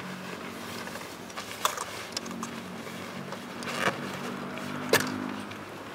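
About four sharp clicks and knocks from the van's roof tent being packed away by hand, the last one the loudest, over a low steady hum.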